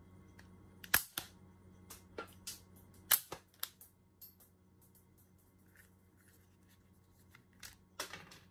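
Sharp plastic clicks from a folding toy pistol being worked: about nine trigger clicks in the first four seconds, some in quick pairs, then louder clicks near the end as the pistol is broken open at its hinge.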